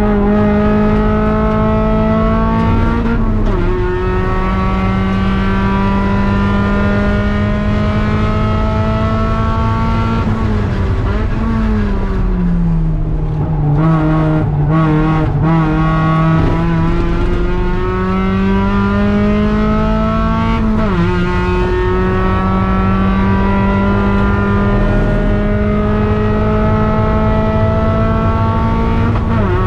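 NB Mazda Miata's four-cylinder engine at full throttle, heard from inside the cabin. Its pitch climbs steadily through the gears and drops suddenly at upshifts about three seconds in, around twenty-one seconds and near the end. Midway the revs fall over a couple of seconds, run low for a few seconds, then climb again.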